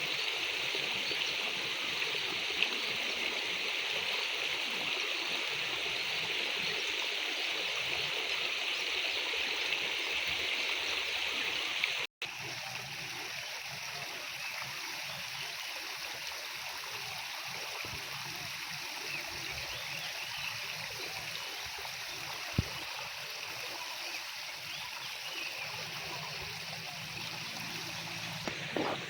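Steady rush of flowing water, like a small stream. About twelve seconds in it drops out for an instant and comes back a little quieter; a single sharp click comes later.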